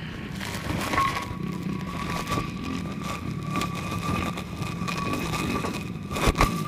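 Yamaha dirt bike engine idling with a steady low rumble and a steady high whine that comes in about a second in, with scattered knocks and scrapes, stronger near the end.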